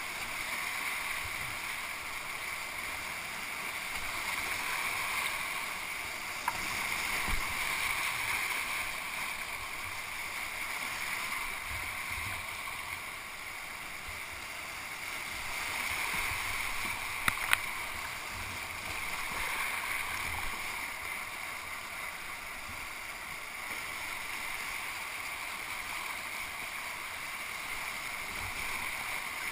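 Whitewater rapids rushing steadily around a kayak, swelling and easing slowly. A couple of sharp knocks about two-thirds of the way through.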